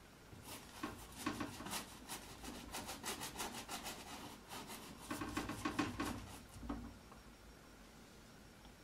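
Paintbrush scrubbing paint onto a canvas in quick back-and-forth strokes, several a second. The strokes stop about two seconds before the end.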